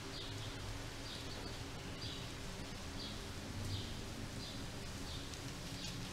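Faint short, high chirps repeating about once a second over a steady low electrical hum, like a small bird calling.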